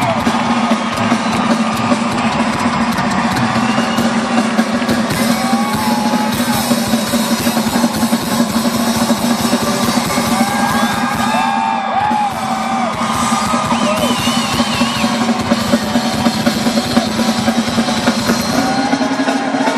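Live rock music with a drum kit to the fore.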